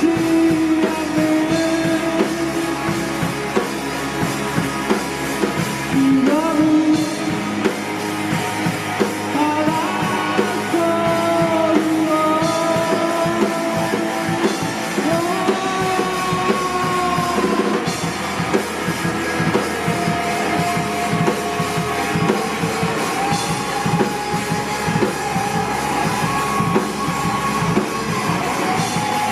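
Live rock band playing a song: drum kit and electric guitars under a sung melody that holds and bends long notes.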